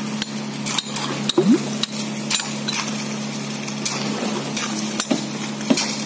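Concrete pump running with a steady low drone while it delivers concrete through the hose. Over it come frequent irregular clinks, knocks and scrapes of shovels and steel tools working the wet concrete among the rebar.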